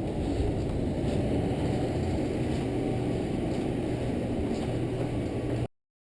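Steady low rushing roar of strong storm wind as the tornado approaches, cutting off abruptly near the end.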